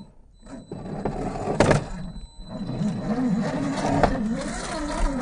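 RC scale crawler's 550 brushed motor and geared drivetrain whining under throttle, pitch rising and falling as it works over rock, with short pauses off the throttle. A sharp knock about a second and a half in.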